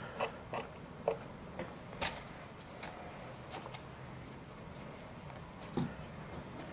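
X-Acto hobby knife blade scraping stray epoxy off a servo arm: a few quiet, short scrapes and clicks of the blade against the servo mount, most in the first two seconds, with one more small knock near the end.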